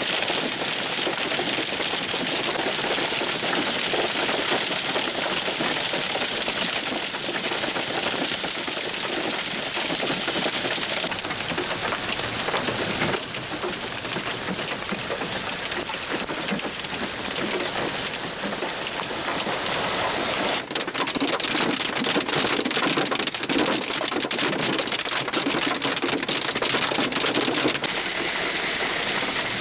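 Heavy hail of about an inch across pouring down and striking, a dense steady clatter. In the later part many separate sharp hits stand out.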